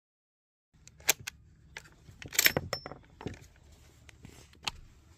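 Dead silence for the first moment, then a series of sharp metallic clicks and clinks, loudest in a short cluster about halfway through: rifles and gear being handled on a wooden shooting bench.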